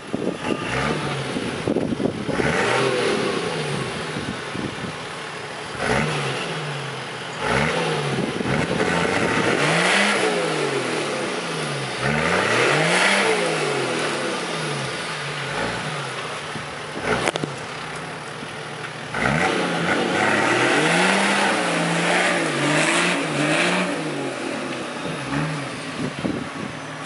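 Toyota Land Cruiser 70's engine revving up and down over and over as the truck struggles in a deep mud rut, with tyre and mud noise at each peak of the revs. A single sharp click about two-thirds of the way through.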